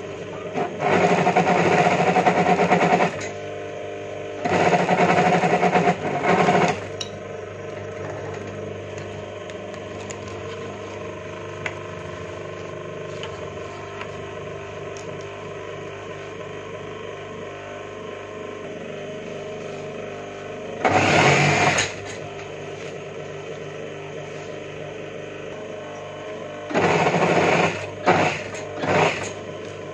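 Industrial single-needle sewing machine stitching through a quilted jacket in short runs: two runs of about two and a half seconds near the start, one of about a second about two-thirds through, and two brief ones near the end, each a fast even rattle of needle strokes.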